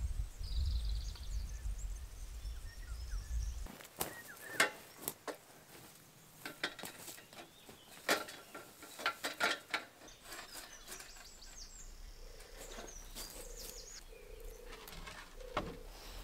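Birds chirping outdoors. From about four to ten seconds there is a run of sharp clicks and knocks. From about twelve seconds a low call repeats several times.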